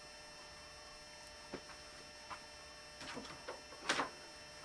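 Low steady electrical hum with a few faint scattered clicks and knocks, and one short louder rustle about four seconds in.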